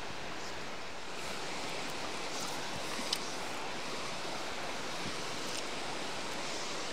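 Steady rush of falling water from a small waterfall, an even, unbroken hiss. A single sharp click sounds about three seconds in.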